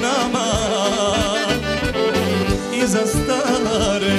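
Live Serbian folk band music led by accordion, with violins, under a man singing a wavering, ornamented melody.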